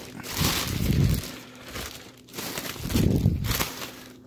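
Clear plastic bag liner crinkling and rustling as it is pulled open in a cardboard box, in two louder bursts, about half a second in and about three seconds in.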